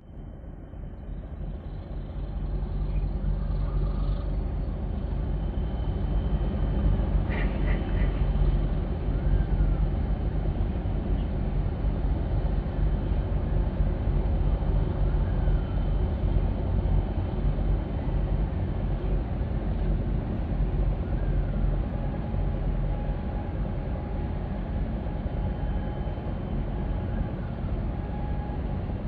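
Steady low rumble of a large bulk carrier's engine as the ship passes close by. The rumble fades in over the first couple of seconds, with a few faint short whistles every few seconds.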